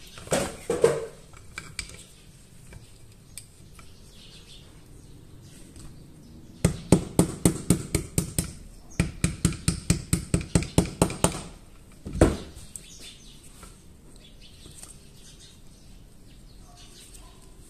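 A small soft-faced hammer tapping out the barrel pin of a Beretta 950 .22 pocket pistol's aluminium frame. The taps are light and quick, about four a second, with a short break about nine seconds in. One harder knock comes about twelve seconds in, and there is some clatter of parts being handled near the start.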